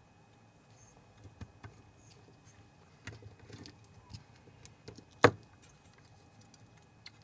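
Small parts and tools being handled on a workbench: scattered light clicks and taps, with one sharp, much louder click about five seconds in.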